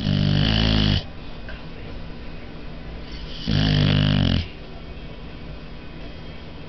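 Boxer dog snoring loudly in its sleep: two snores about a second long each, the first at the start and the second about three and a half seconds later.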